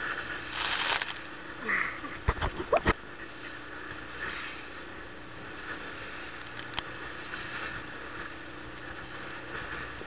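Small motorboat running through rough sea: a steady engine drone under rushing water noise, with a burst of splashing spray at the start and a few sharp knocks about two to three seconds in.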